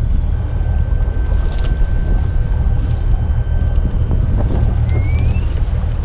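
Steady low rumble of a fishing boat's engine, with wind on the microphone. Over it runs a faint steady whine, and a short rising whine comes about five seconds in.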